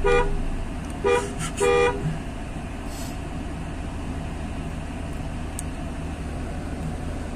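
Car horn tooting several short times in the first two seconds, over the steady low rumble of a running engine.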